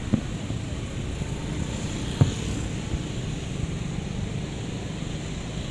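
Distant aerial fireworks shells bursting with sharp booms, one just after the start and another about two seconds in, over a steady low rumble.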